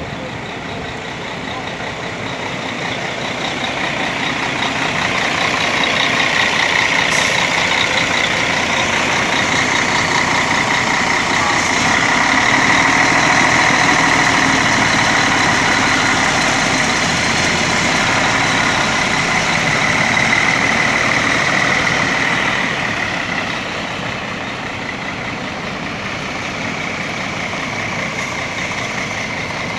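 Diesel engine of a Mercedes-Benz bus running, its sound swelling over the first several seconds, holding, then easing off about 23 seconds in.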